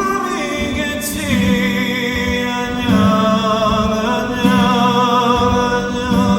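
Live band music with a voice holding long, wordless notes with vibrato over a steady low accompaniment note.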